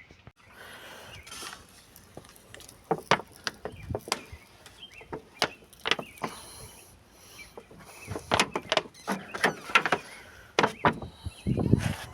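Irregular clicks, taps and knocks of hands and tools working on the bare inner side of a 1966 Ford Thunderbird's door, with the knocks coming thicker in the second half.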